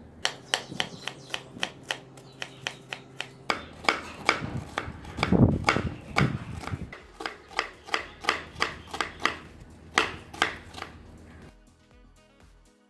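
Knife chopping an onion on a cutting board: a steady run of sharp taps, about three a second, that stops about a second before the end, where quiet background music comes in.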